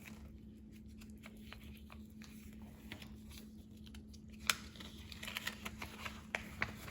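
Hands handling a toy doll and small plastic pieces: scattered light clicks and taps, with one sharper click about four and a half seconds in and a quicker run of taps near the end, over a faint steady hum.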